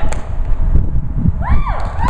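Dull thumps from feet stomping on pavement. Near the end a few high calls rise and fall as spectators start to whoop.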